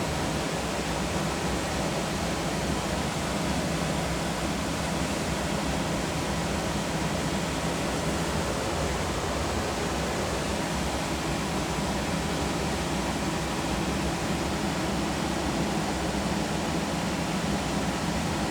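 Rheem gas furnace's circulating blower running on after the burners and inducer motor have shut off: a steady rush of moving air with a low hum. It is the blower's post-cycle run, which clears the remaining heat from the heat exchanger.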